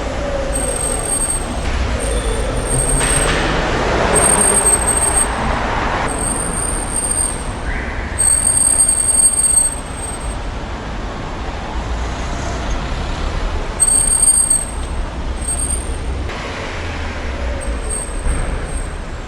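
Car disc brakes squealing: a string of high-pitched squeals, each about a second long, repeating several times, over the low rumble of the car rolling.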